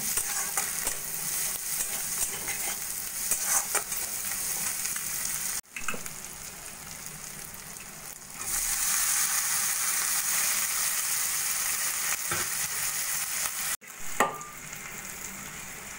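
Egg and onion-tomato masala sizzling in hot oil in a kadai while a spatula stirs and scrapes against the metal pan. The sizzle is loudest through the middle stretch and drops near the end, when the boiled dal is in the pan.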